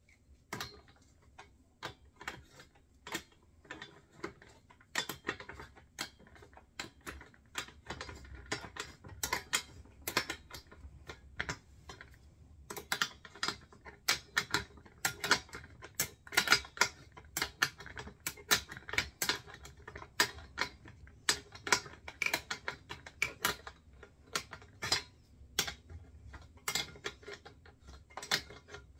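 Irregular metal clicks and clinks of a hand tool working the nut on the wheel's axle bolt of a steel wheelbarrow frame. Sparse at first, busier from about halfway.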